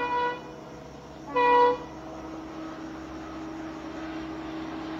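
Air horn of twin EMD WDP-4D diesel locomotives: a short blast right at the start and a louder one about a second and a half in. Between and after the blasts the locomotives' diesel engines drone steadily, growing slowly louder as the train approaches.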